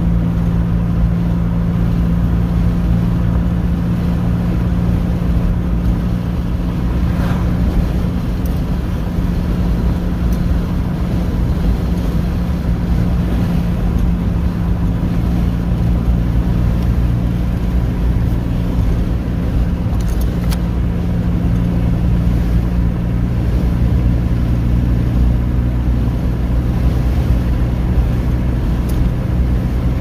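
Car engine and tyre noise heard from inside the cabin at steady highway speed: an even, low hum that does not change.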